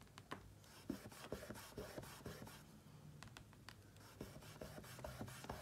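Faint, irregular scratchy strokes of a lip liner pencil shading on a paper journal page.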